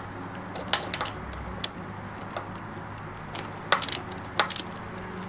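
Ratchet and socket on a motorcycle brake-line banjo bolt under the front master cylinder, cracking it loose. Scattered sharp metallic clicks and clinks, with a few in quick succession about four seconds in.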